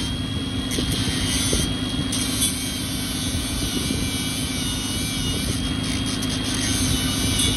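An engine or motor running steadily at an even pitch, with a low, even pulsing beneath a constant hum.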